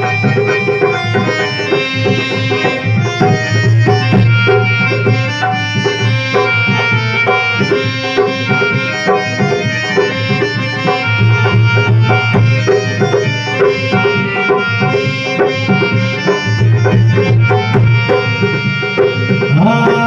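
Instrumental interlude in a devotional bhajan: a dholak played by hand in a steady rhythm under a held, ornamented melody line.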